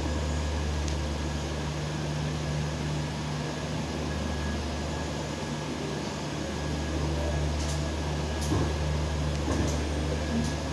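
Steady low hum of an Indian Railways express train's coach as it rolls slowly along a station platform, with a few faint clicks about three-quarters of the way through.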